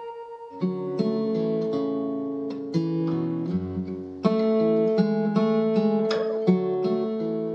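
Background music of acoustic guitar picking notes and chords, each one ringing out, with a stronger strum about four seconds in.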